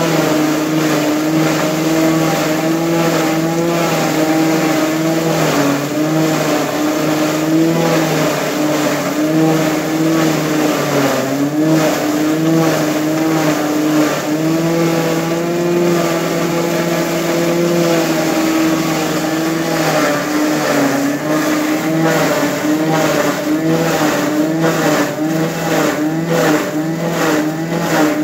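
Stainless steel ginger-garlic paste grinding machine running loud and steady under load as paste is fed into its hopper, its motor hum wavering slightly in pitch now and then.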